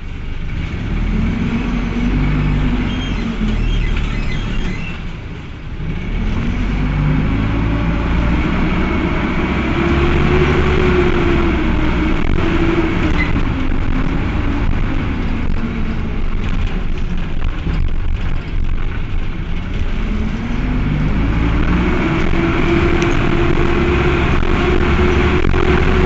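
Cummins ISBe four-cylinder diesel of an Agrale MT12.0 LE midibus under way. Its revs climb and fall three times: a short rise near the start, then longer pulls held at higher revs from about eight and about twenty-one seconds in. The engaged radiator fan runs throughout, which the uploader takes as a sign of these Cummins engines' tendency to run hot.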